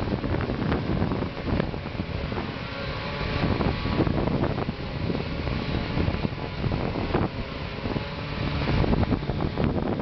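Case IH MX285 tractor's diesel engine pulling a Gehl forage harvester that is chopping hay and blowing it through the spout into the wagon: a steady machine drone, with wind buffeting the microphone.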